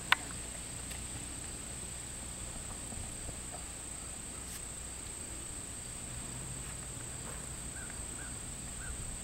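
Steady, high-pitched drone of insects such as crickets over faint outdoor background noise, with one sharp click just after the start.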